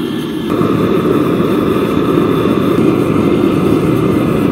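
Gas forge burner running steadily, a loud even rush of flame. About half a second in it gets louder and a faint steady whine comes in.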